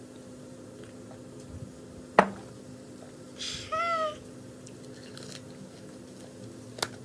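A sharp knock of a small glass being set down on a table, then about a second and a half later a short, high vocal sound that falls in pitch; a few light clicks near the end.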